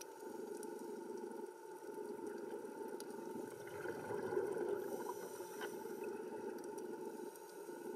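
Underwater ambience heard through a camera housing: a steady muffled hiss and hum, with scuba regulator exhaust bubbles gurgling and swelling around the middle.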